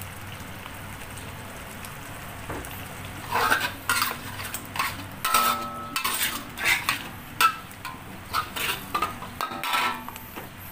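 Metal spatula scraping and stirring chilli sambal paste and coconut milk around a steel wok, with repeated scrapes from about three seconds in, some ringing briefly. Under the scrapes the paste sizzles steadily in the oil.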